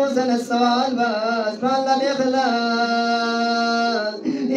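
A man chants a melodic supplication into a microphone, his voice amplified. He sings short wavering phrases, then holds one long steady note for about a second and a half near the end.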